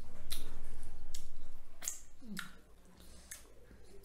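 Wet smacking and sucking sounds of people eating fish curry and rice with their hands and licking their fingers, with a few sharp smacks and a low rumble over the first two seconds.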